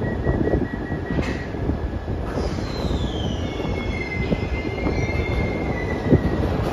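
Glasgow Subway train pulling out of the platform over a steady rumble. A rapid high beeping stops with a knock about a second in, then the wheels squeal in several high tones that slide down in pitch as the train gathers way.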